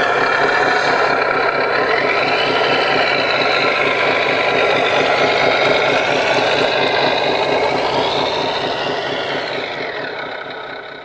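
Simulated diesel engine sound from RC construction models' sound modules, idling steadily with a pulsing low rumble. A whine rises and falls twice as the RC CAT 963D track loader drives and works its bucket. The sound fades out near the end.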